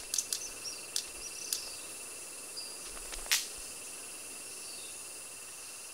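Sharp wing snaps of male red-capped manakins displaying: a few quick snaps in the first second and a half, then a louder single snap about three seconds in, over a steady high drone of tropical insects.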